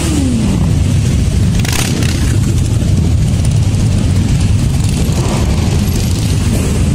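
A dense pack of motorcycles running at low parade speed, their engines blending into a steady, loud rumble. Near the start one bike's engine note rises and then falls as it passes close by. A short sharp noise comes about two seconds in.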